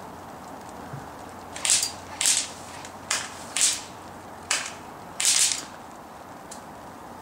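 Six crunching steps through dry undergrowth, each a short rustling crunch, spaced about half a second to a second apart.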